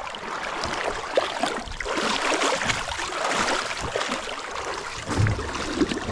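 Shallow creek water rushing and splashing around a kayak, with scattered small knocks. A low rumble comes in near the end.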